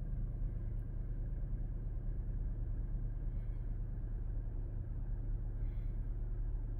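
Kia Telluride's 3.8-litre V6 idling, a steady low hum heard from inside the cabin. The owner's check found no strange noises.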